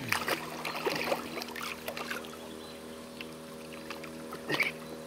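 Water splashing, with sharp handling noises, as a hooked wels catfish is played and drawn in beside an inflatable boat. The splashes come in a cluster in the first second or so and again about four and a half seconds in. Under it runs a steady held drone of background music.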